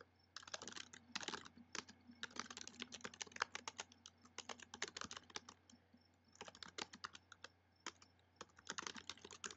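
Typing on a computer keyboard: runs of quick keystroke clicks broken by short pauses, over a faint steady hum.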